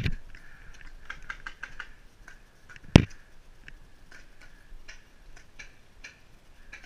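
Two sharp, close shots or hits about three seconds apart during a paintball or airsoft skirmish, over a scatter of small rapid clicks from more distant shots and pellets striking.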